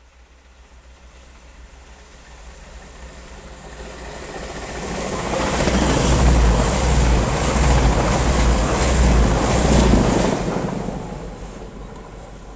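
Diesel multiple unit express passing at speed: the rumble and rush of its wheels on the rails grow over several seconds, are loudest for about four seconds as it goes by, then fade.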